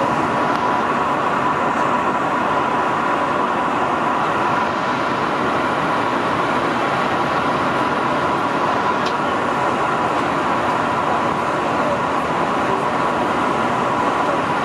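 Steady cabin noise of a Boeing 737-800 in flight, heard from the front row: an even rush of airflow and CFM56-7B engine noise with a faint steady whine at one pitch.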